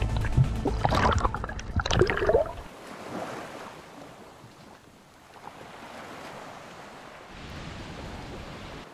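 Background music ending about two and a half seconds in, followed by a soft steady wash of surf and wind.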